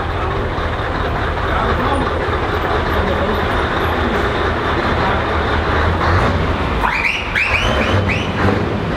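Scania V8 truck engine running loudly as the truck pulls through an underpass, a heavy steady rumble. About seven seconds in, a quick series of four or five high-pitched rising-and-falling sounds cuts in.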